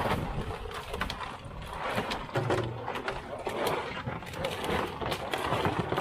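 Busy fish-market din: many irregular clattering knocks and clicks over a background hubbub.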